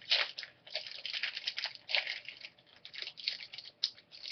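Football trading card pack being handled: foil wrapper crinkling and tearing, and cards rustling against each other in a run of irregular scratchy rustles.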